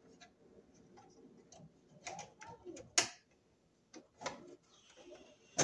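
Scattered clicks and light scrapes of a wire being worked into a double-pole breaker's terminal in a metal sub-panel, with a sharp click about three seconds in and another at the end.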